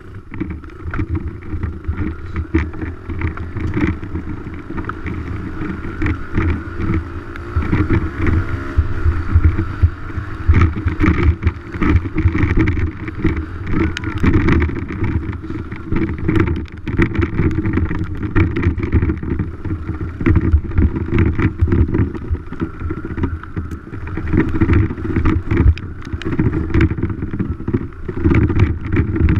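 Dirt bike engine running under way, its note rising and falling, with frequent short knocks and rattles over rough ground.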